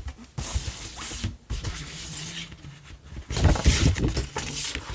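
Paper record sleeves rustling and sliding as a vinyl LP and its plain white inner sleeves are handled, growing louder with soft knocks about three seconds in.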